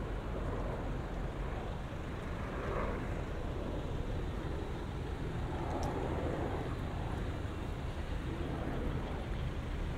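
City street traffic: motor vehicles passing over a steady low engine rumble, the noise swelling several times as vehicles go by.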